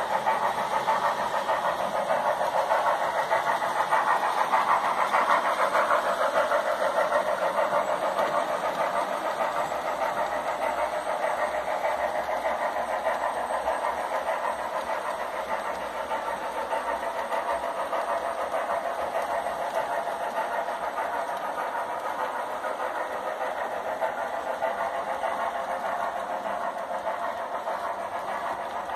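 HO scale model steam train running on the layout: a steady, rapid mechanical running noise from the locomotive and passenger cars on the track, easing off slightly toward the end.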